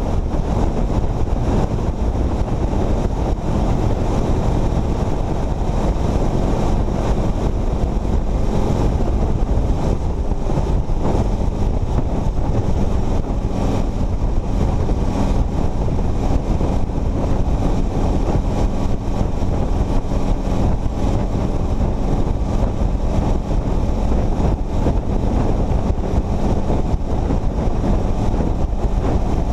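Steady wind rush on the microphone and road noise from a vehicle at highway speed, with engine hum underneath.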